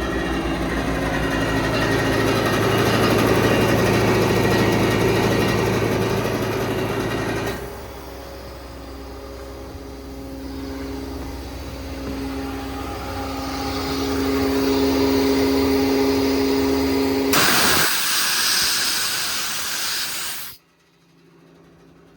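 A Ford 6.7 Power Stroke diesel truck runs with its IMT hydraulic air compressor working: a steady machine hum whose pitch creeps up slowly. Near the end a loud hiss of air lasts about three seconds and cuts off suddenly.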